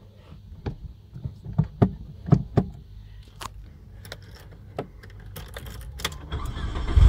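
Car keys jangling and clicking as the ignition key is handled and turned in a Mitsubishi Lancer Evolution 6.5 Tommi Makinen Edition. Right at the end the car's turbocharged 2.0-litre four-cylinder engine cranks and starts with a low rumble.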